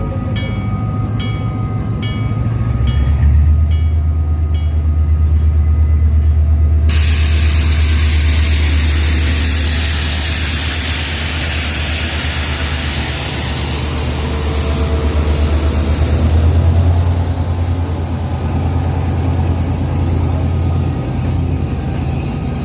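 Diesel engine of a GM G22W locomotive running, its low hum rising in level about three seconds in, with a regular ticking early on. From about seven seconds in a loud steady hiss joins it.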